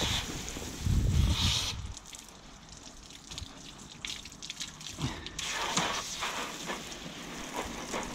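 Garden-hose spray nozzle rinsing soapy water off a clear plastic wing bladder: water spraying and splashing, loudest about a second in, then quieter dripping and splashing with small clicks.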